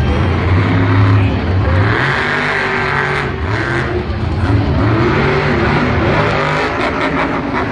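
Lucas Oil Crusader monster truck's supercharged V8 engine revving hard, its pitch rising and falling as the truck drives the dirt course and launches off a jump.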